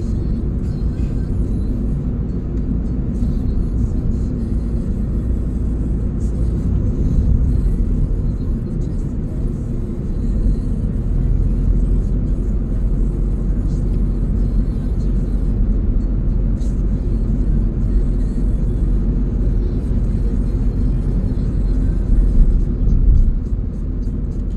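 Steady low rumble of tyre and engine noise inside a small car's cabin while it cruises at highway speed, getting briefly louder near the end.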